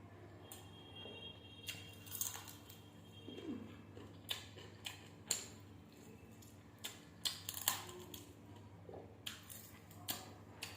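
Close-up eating sounds: chewing on fried chicken biryani with irregular sharp mouth smacks and small crunches, about one or two a second.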